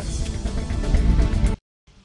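TV talk-show break music, a full band track with a heavy low end, which cuts off abruptly about one and a half seconds in, leaving a moment of dead silence.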